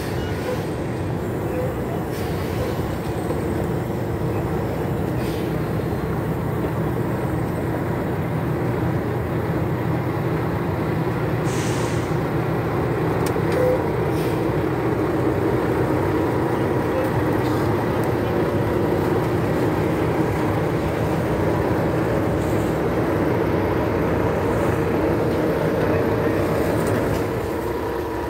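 Heavy diesel truck engines running steadily, growing a little louder after several seconds, with a short hiss about twelve seconds in.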